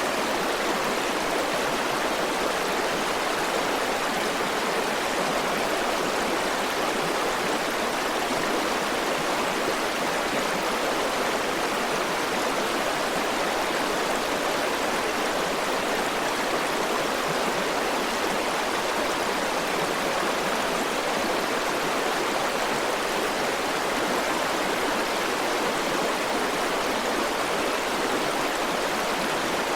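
River water rushing over rocks, a steady even flow with no breaks.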